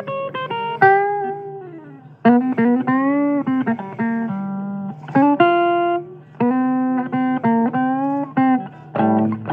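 Blues guitar playing: plucked single notes and short phrases, many of them bent or slid so the pitch curves up and down, with brief pauses between phrases.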